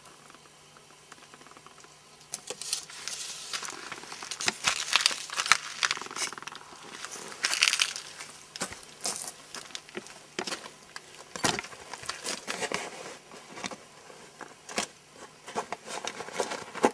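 Dry birch bark crinkling and crackling, with wooden sticks scraping and knocking against the oven stones as a loaf baked on the bark is lifted out. A run of irregular crackles and clicks starts about two seconds in, the sharpest knock a little past the middle.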